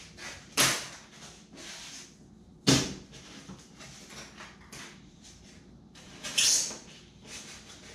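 Handling noises from work on a foam boat's hull: a short scrape, a sharp knock about two and a half seconds in, and a longer rasping scrape near the end, over faint rustling.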